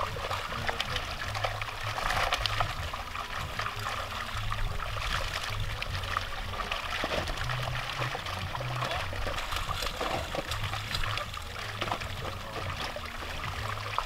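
Water splashing and trickling as tambaqui thrash in a seine net drawn tight in shallow pond water, a continual run of small splashes.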